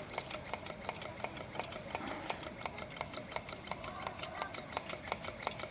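Homemade wood-fired Stirling engine and the small brushed motor it drives as a generator, running with a rapid, light ticking clatter. The engine is gradually picking up speed as it warms.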